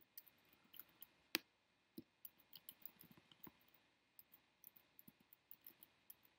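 Faint, irregular clicking of a computer mouse as a layer is dragged and nudged into alignment, with one louder click about a second and a half in.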